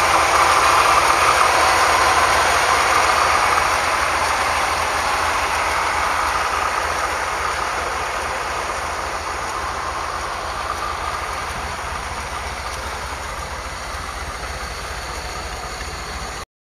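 1974 Corvette L82 350 V8 idling steadily, slowly growing quieter.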